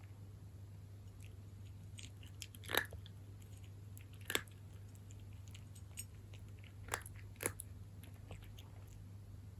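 A cat chewing dry kibble: irregular crisp crunches, four of them louder, with small clicks between.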